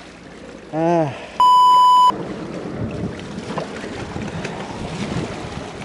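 A short swooping tone that rises and falls, then a loud edited-in 1 kHz bleep lasting under a second. After it, a steady wash of wind and sea water lapping on the rocks.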